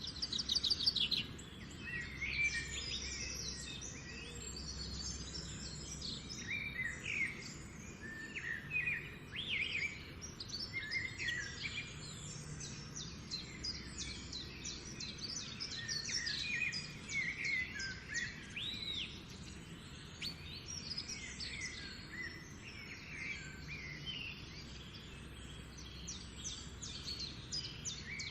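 Several birds calling and singing at once, with many overlapping short chirps and whistles. A faint steady low rumble runs underneath.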